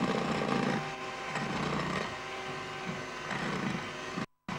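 Electric hand mixer running, its beaters whisking cocoa powder into a thick egg-yolk and sugar mixture in a glass bowl. A steady motor hum swells and eases every second or so as the beaters move through the mixture, and the sound cuts out briefly near the end.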